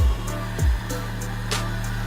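Background electronic music: deep kick-drum thumps over a sustained bass, with light high ticks and one sharper hit about halfway through.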